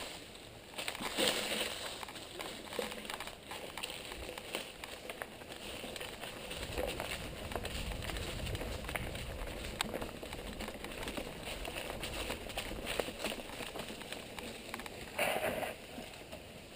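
Mountain bike rolling fast down a dirt and rock trail: tyres crackling over loose ground with a steady patter of clicks and rattles, a low rumble through the middle, and a short louder scrape near the end.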